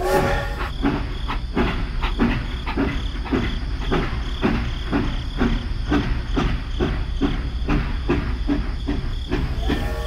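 Battery-powered toy steam locomotive running on its plastic track, its electronic chugging sound going at about three chuffs a second over a steady motor hum, with a short toot near the start and again at the end.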